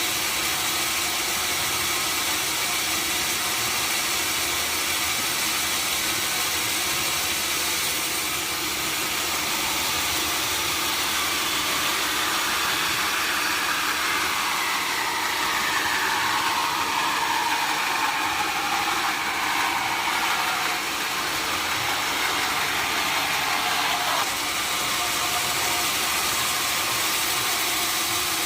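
Sawmill machinery running with a steady, loud noise. About halfway through, a whine slowly falls in pitch for around ten seconds, then stops abruptly.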